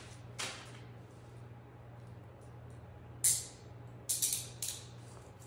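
A few short, sharp handling noises, one about half a second in, the loudest just past three seconds and three more in quick succession around four seconds, over a steady low hum.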